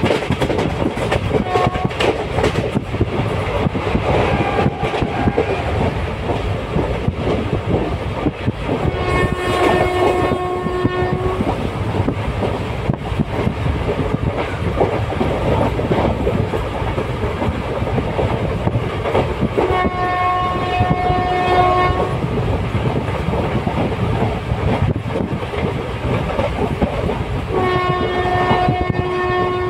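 Train running on the rails, a steady rumble with clickety-clack. The horn sounds three times, each blast about two seconds long: about ten seconds in, about twenty seconds in, and near the end.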